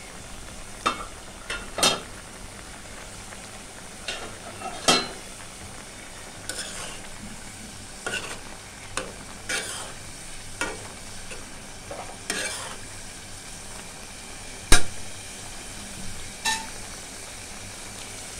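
Ground spice paste frying in oil in a metal pan with a steady sizzle, stirred with a spatula that scrapes and knocks against the pan about a dozen times at irregular intervals. The sharpest knock comes about 15 seconds in. This is the masala being fried down (koshano) before the chicken goes in.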